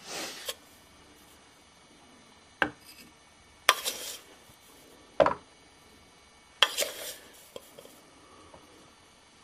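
Spoon and mugs clinking while coffee is made: four sharp clinks spaced a second or so apart, some followed by a short scrape, with a brief rustle at the start.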